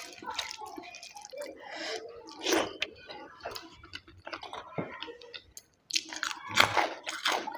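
A person chewing and eating close to the microphone, with irregular mouth clicks and smacks. There is a brief pause a little past halfway.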